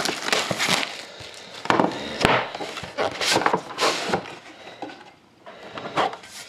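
Clear plastic shrink wrap crinkling as it is stripped from a sealed box of hockey cards, followed by sharp knocks and rustling as the cardboard box and its lid are handled and lifted open.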